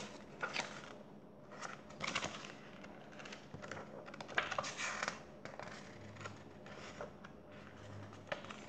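Paperback book being handled and its pages turned: a run of short, faint paper rustles with light scratches and taps.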